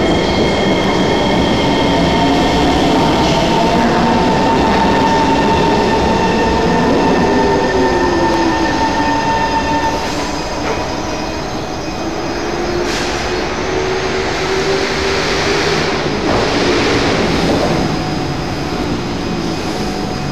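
C151 MRT train braking into a station: a falling whine from its motors over steady high tones, which stop as the train halts about halfway through. Its doors then open with a burst of hiss.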